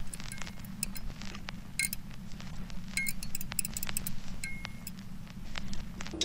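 Irregular tinkling of small chimes, several light ringing strikes a second, over a steady low drone.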